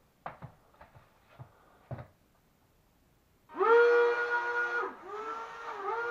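Small electric propeller motors of a lightweight RC plane spinning up with a quickly rising whine about three and a half seconds in, then running steadily. After about a second the whine weakens and dips in pitch twice, as the plane's on-off, non-proportional motor power cuts and returns. A few light handling knocks come first.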